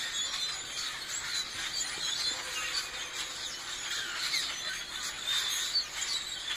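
A flock of birds in trees calling all at once: a dense, continuous chatter of many short, high overlapping chirps and squeaks.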